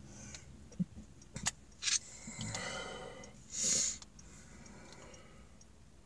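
A man breathing out hard and sniffing, with a loud sniff or snort near the middle. A few light clicks of a screwdriver being handled come in the first two seconds.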